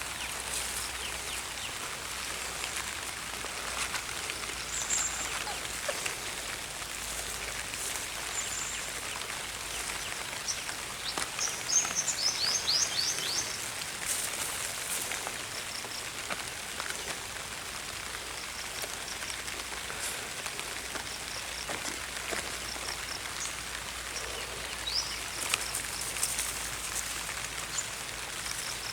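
Steady patter of light rain outdoors, with birds chirping now and then, including a quick run of falling high chirps about 11 seconds in.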